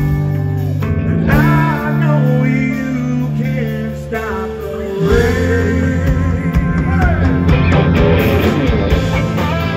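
Live blues-rock band playing loudly, with an electric guitar lead of bent, wavering notes over the bass and drums.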